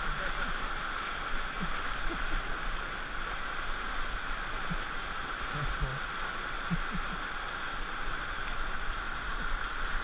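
Steady rush of whitewater breaking and churning around an inflatable raft as it surfs a hole in a rapid.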